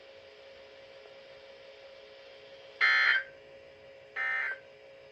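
Two short buzzy bursts of digital data tones, about a second and a half apart, from an Eton FRX5 weather radio's speaker: the EAS/SAME end-of-message code that closes the NOAA Weather Radio required weekly test. A faint radio hiss with a low steady hum sits between the bursts.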